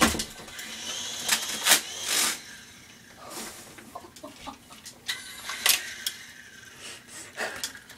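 A string of irregular sharp clicks, knocks and rustling bumps, like a small plastic toy being handled and knocking about. The loudest come right at the start and again a second or two in.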